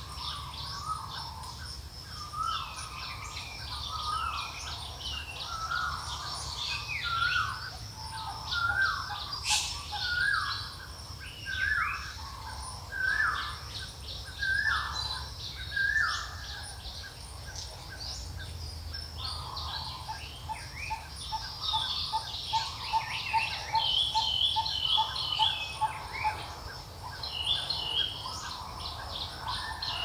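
Several birds singing and calling: a repeated series of short slurred whistled notes, higher chirps above them, and past the middle a fast, even run of notes, over a low steady background hum.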